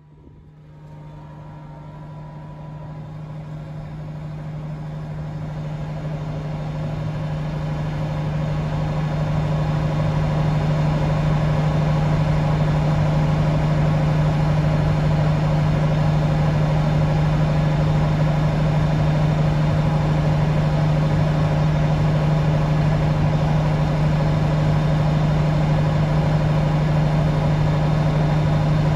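Farm machine's engine running steadily at a constant speed. It grows louder over the first ten seconds or so, then holds level.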